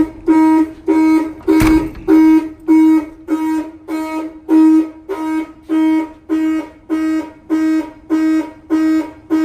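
A 1952 Chevy pickup's alarm going off after a door was opened while it was armed, sounding the truck's horn in a steady rhythm of short, evenly spaced honks on one pitch, nearly two a second. There is a single sharp click about a second and a half in.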